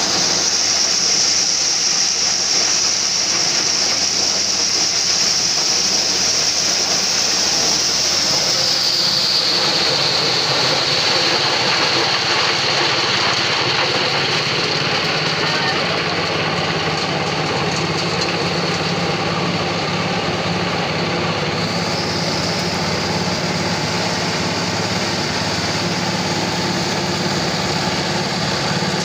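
Small engine-driven corn threshing machine running while shelling maize cobs: a steady engine drone with the clatter of the threshing drum and a strong high whine, which steps down slightly in pitch about nine seconds in.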